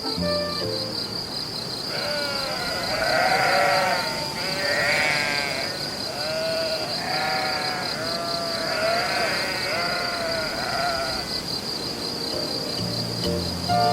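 Sheep bleating, a run of wavering calls from about two seconds in until near the end, over field crickets chirping steadily.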